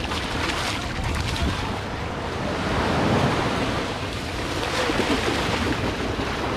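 Small waves breaking and washing up on a sandy beach, with wind buffeting the microphone and splashing as a dog runs through the shallows.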